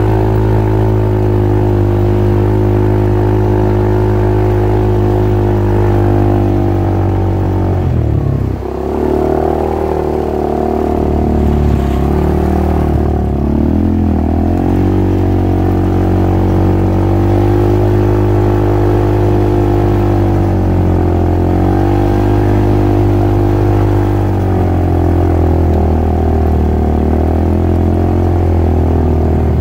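Polaris RZR side-by-side engine running steadily under way, its pitch dipping briefly about eight seconds in and climbing back.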